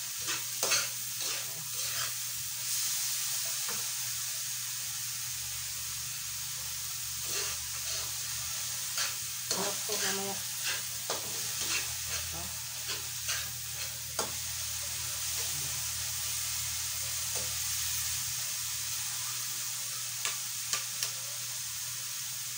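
Pork frying and sizzling in a wok, with a metal ladle scraping and clinking against the pan as it is stirred in spells of quick strokes.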